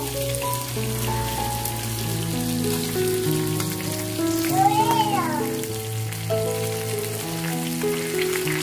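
Hot oil sizzling steadily in a frying pan as patin catfish fries, with a fine crackle throughout. Background instrumental music with a melody of held notes plays over it, with a brief sliding note about five seconds in.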